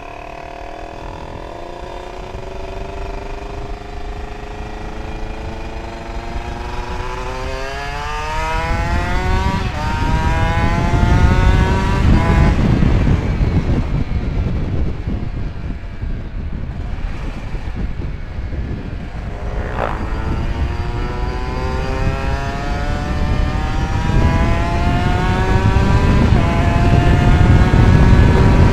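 Kawasaki Ninja 150 R's two-stroke single-cylinder engine under hard acceleration on a top-speed run, its pitch climbing steadily, dropping sharply at a gear change about twenty seconds in, then climbing again. Wind noise on the microphone grows louder with the speed.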